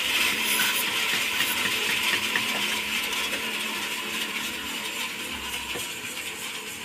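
Log sawmill machine running, with a steady hiss and many small metallic clicks and rattles. It slowly gets quieter.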